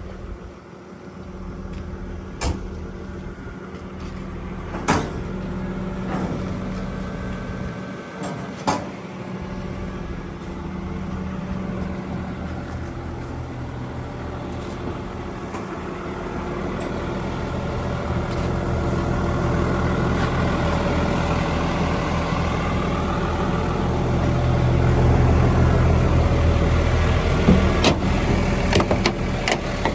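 Diesel engine of a Volvo EW180C wheeled excavator running, growing louder through the second half as it is worked harder. A few sharp metallic knocks are heard, one a few seconds in and several near the end.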